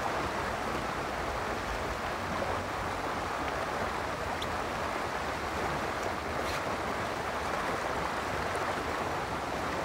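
Steady rush of river water flowing over riffles, with a couple of faint clicks midway.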